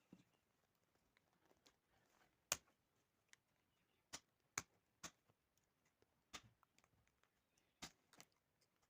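Faint, scattered sharp clicks and taps at uneven intervals, the sound of small kettle parts and tools being handled during a repair, with the loudest click about two and a half seconds in.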